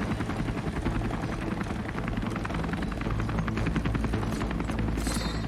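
Helicopter rotors chopping rapidly over a steady engine drone, with a short hiss about five seconds in.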